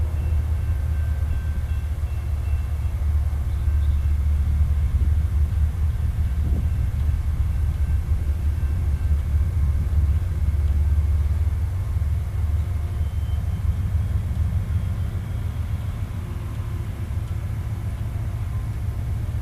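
Low, steady rumble of distant diesel freight locomotives, a little louder in the middle and easing off toward the end.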